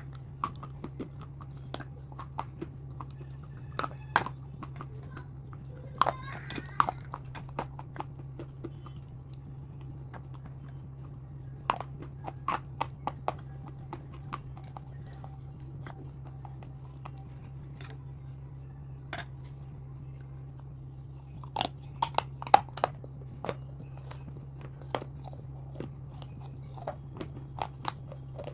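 Close-miked eating: sharp, crisp bites and crunching of brittle cups, then chewing. The crunches come in scattered clusters, the loudest run about three quarters of the way through, over a steady low hum.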